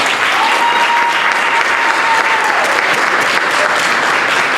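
Audience in a hall applauding, a dense, steady clapping that greets the end of a recited poem. A single held high tone rides over the clapping from about half a second in and falls away before the middle.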